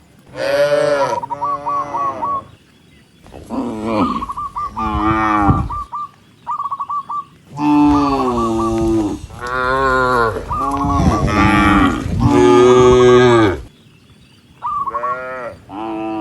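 Several cows mooing one after another, the calls often overlapping. The longest run of loud moos comes in the middle, with a short pause just before the last few calls.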